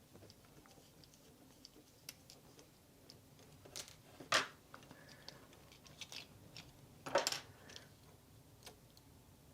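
Small plastic parts of an Ebo robot toy being handled during disassembly: scattered soft clicks and taps, with two short louder scrapes about four and seven seconds in.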